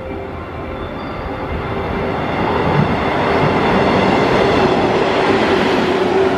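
JR West 105 series electric train passing through a station without stopping. Its running noise grows louder from a few seconds in and is loudest as the cars go by, with a steady hum under the noise.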